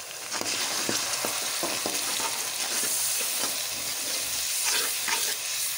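Ground spices and yogurt frying in hot ghee with browned onions, sizzling in a metal karahi. A slotted metal spoon stirs and scrapes against the pan throughout, and the sizzle grows brighter about halfway through.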